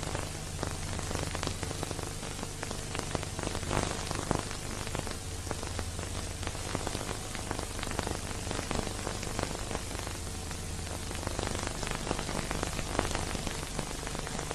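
Steady hiss and crackle with a low hum underneath, and no music: the surface noise of an old silent-film transfer.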